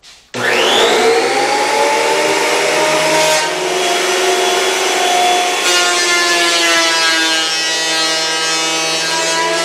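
Benchtop thickness planer switched on about a third of a second in, its motor whining up to speed, then running loud while planing a maple board. Its tone shifts a couple of times as the board passes through.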